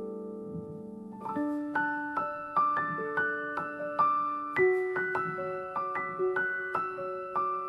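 Background piano music: a held chord fades out, then a gentle melody of single notes begins about a second in, at a calm, even pace.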